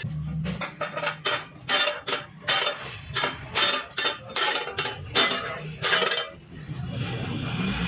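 Hammer tapping the dented steel side panel of a Suzuki WagonR, a run of sharp metallic strikes about two a second that stop about six seconds in.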